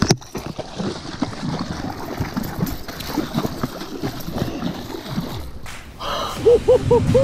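Water splashing and sloshing at the boatside as a big muskie is grabbed and landed, with hard breathing and gasps. Near the end, music comes in as a quick run of short repeated notes, about four a second.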